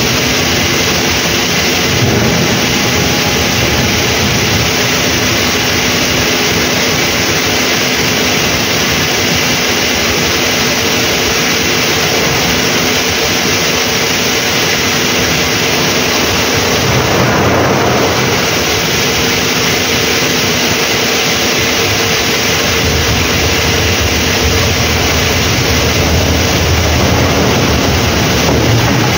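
Steady, loud rushing noise with a faint constant hum underneath, the ambient drone on a ship's open bow deck, with a short swell about two-thirds of the way through.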